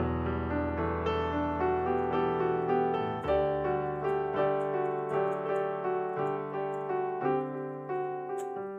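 Background piano music, a gentle melody with notes struck about every half second over low held bass notes.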